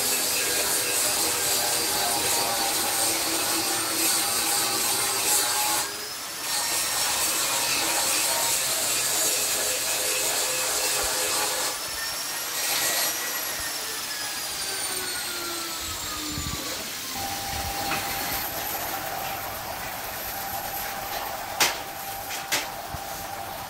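Handheld angle grinder grinding a steel knife blade, with a short break about six seconds in. About twelve seconds in it is switched off and its whine falls in pitch as it spins down; a quieter steady hum follows, with two sharp clicks near the end.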